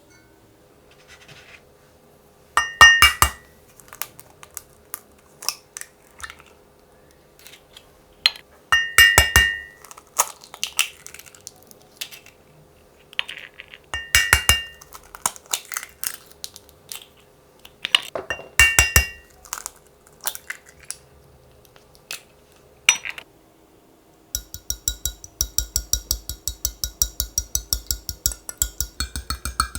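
Eggs cracked one at a time on the rim of a bowl: four separate bursts of sharp taps, each with a brief ring from the bowl and some shell crackle. About three-quarters of the way through, a fork starts beating the eggs, clinking quickly and evenly against the bowl.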